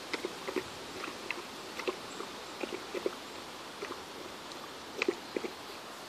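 Newfoundland puppy lapping water from a plastic bucket: irregular wet laps and smacks, a few a second, with a louder cluster about five seconds in.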